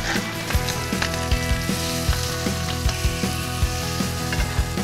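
Beef steak sizzling in foaming butter in a hot frying pan, with a spoon basting the butter over it. Background music with a steady beat plays under the sizzle.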